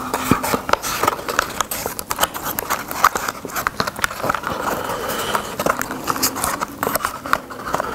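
A small paperboard snack box being pried and torn open by hand: a dense, irregular run of cardboard clicks, creaks and crackles.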